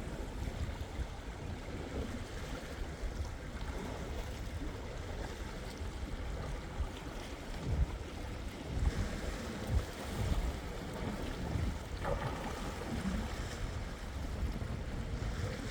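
Wind buffeting the microphone in uneven low gusts over the wash of sea waves.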